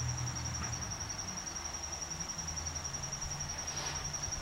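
Steady high-pitched trill of an insect, a fast, even pulsing held on one pitch, over a faint low rumble.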